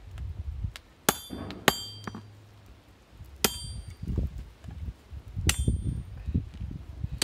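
Hammer blows on a steel fire poker on an anvil, straightening its handle. There are four sharp, ringing strikes at uneven intervals, with a low rumble underneath.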